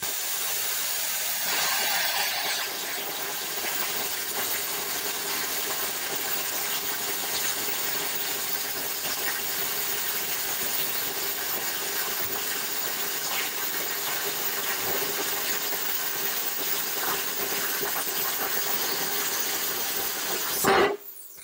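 Vevor Cut 50P plasma cutter at 40 amps cutting through 3/8-inch steel angle: the steady hiss of the arc and its compressed-air jet, which cuts off abruptly near the end as the torch finishes the cut.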